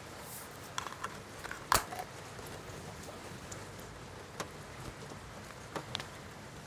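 Pull-tab lid of a can of chili being cracked open: a few small clicks, then one sharp click about two seconds in. Later come a few light clicks and rustles as shredded cheese is handled and sprinkled into a pot.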